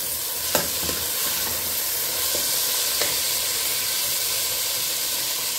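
Raw long-grain rice frying in a stainless steel pot, a steady sizzle, as a metal spoon stirs it, clicking against the pot about half a second in and again about three seconds in.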